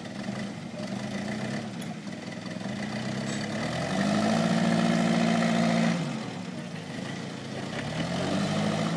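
Forklift engine idling, then revving up for about two seconds a little after three seconds in, as it drives the mast hydraulics to lift the load, and dropping back to idle. It revs up again near the end.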